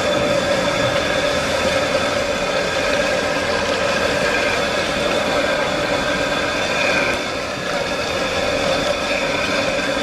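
Loud steady mechanical drone with a constant hum over a rushing hiss, unchanging throughout.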